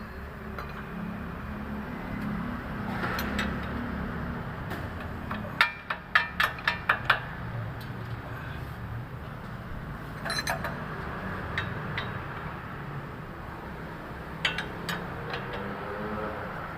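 Metal tools clinking and tapping on steel suspension parts: a quick run of six or seven sharp strikes about six seconds in, and a few scattered taps later, over a steady low rumble.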